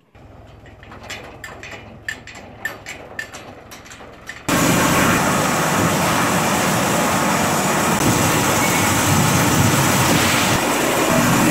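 A tractor engine runs low under a run of sharp knocks, the clatter of plastic harvest bins on its trailer. About four and a half seconds in it gives way suddenly to the much louder, steady running of a stainless-steel grape sorting table and destemmer.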